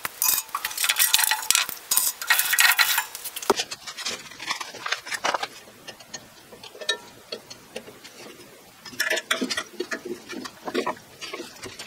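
Small steel bolts, washers and spacers jingling and clicking together in a hand for the first few seconds. Then come scattered light clicks and knocks as the wooden belt guard is handled.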